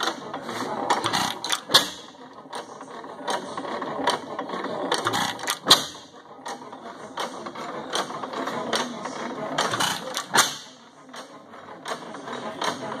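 5 HP Sattley hit-and-miss gas engine running, its valve gear and moving parts clattering with irregular clicks. Three louder bangs come about four to five seconds apart, the engine firing between stretches of coasting.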